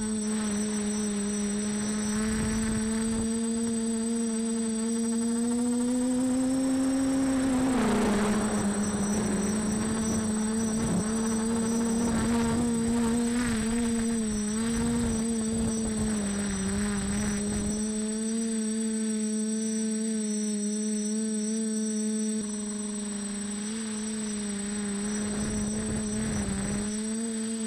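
Multirotor drone's electric motors and propellers buzzing steadily, the pitch rising slowly for several seconds, dropping sharply about eight seconds in, then wavering slightly as the throttle changes. A thin high whistle runs along above it.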